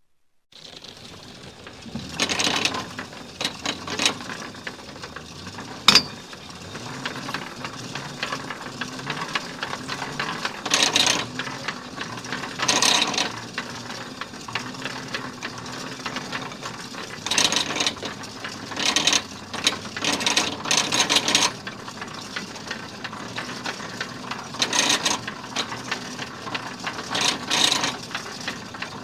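Factory machinery running: a steady mechanical clatter and whir with louder rattling spells every few seconds, and one sharp bang about six seconds in. It starts after a brief silence at the very beginning.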